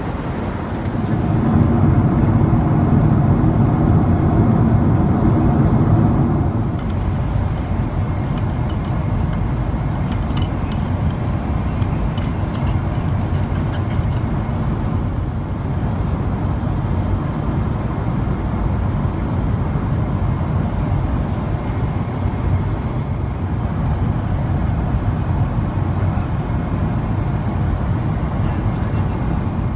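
Steady roar of a Boeing 777-300ER cabin in flight, engine and airflow noise, louder for the first few seconds in the galley. Light clinks of dishes and glassware come about 7 to 15 seconds in.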